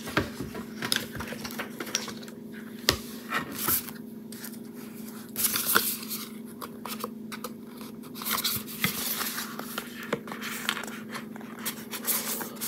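Makeup palettes and their packaging being handled: scraping and rustling with scattered light clicks and taps, busiest around the middle. A faint steady hum runs underneath.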